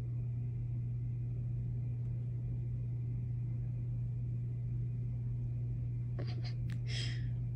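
Steady low hum of room or recording background noise. Near the end there are a few soft clicks and a short hiss-like burst.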